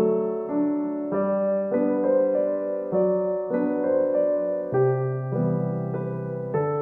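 Background piano music: a slow, gentle piece with notes and chords changing about once or twice a second.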